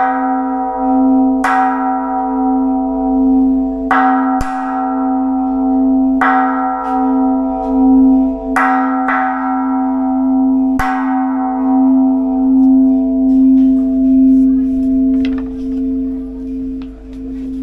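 Ceremonial memorial bell struck five times, about two seconds apart, each stroke ringing on in a long hum that pulses as it slowly fades. It is the bell tolled to invite the spirits of the fallen soldiers before incense is offered.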